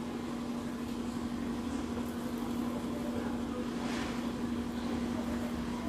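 A steady low mechanical hum holding one even tone, with a faint soft rustle about four seconds in.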